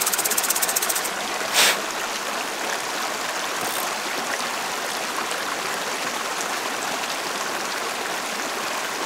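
Small mountain creek rushing steadily over rocks, loud enough to be called "kind of loud" at the water's edge. A quick run of fine clicks sounds in the first second, and a short rustle comes at about a second and a half.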